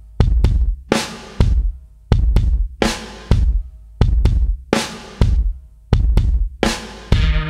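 Background music: a heavy drum beat of kick-drum and snare or cymbal hits with long ringing tails, in a pattern that repeats about every second and a quarter. A steady bass line comes in near the end.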